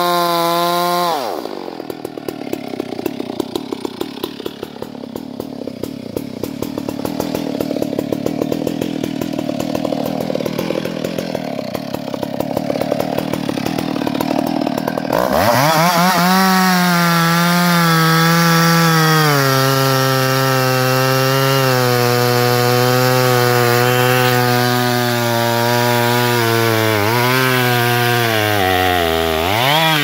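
Two-stroke chainsaw cutting into a tree trunk at full throttle. About a second in its pitch drops and it runs lower and rougher for the next dozen seconds; about halfway through it switches suddenly back to a steady high note, settles a little lower a few seconds later and wavers near the end.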